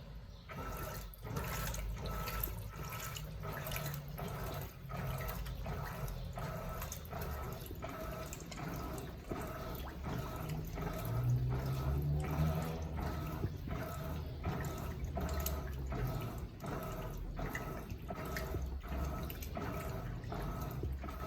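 Electrolux LPE16 washing machine washing a load of heavy blankets, water sloshing in the tub in a regular beat of about two strokes a second over a low running hum.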